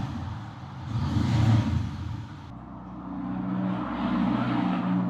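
Motorcycle engine running, its sound swelling about a second in and again toward the end, with an abrupt change in the sound about two and a half seconds in.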